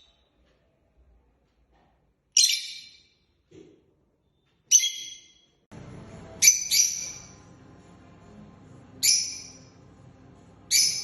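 Ringneck parrot giving short, sharp, high-pitched calls, about one every two seconds, six in all with one quick double call in the middle. A faint steady low hum comes in a little past halfway.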